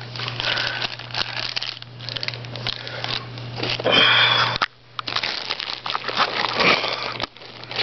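Clear plastic bags crinkling and rustling as wrapped telescope parts are handled, with a brief pause a little past halfway.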